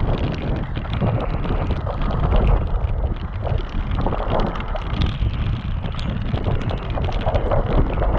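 Mountain bike descending a wet, rough trail: wind buffeting the microphone over a low rumble of tyres, with frequent clatters and rattles from the bike over the ground.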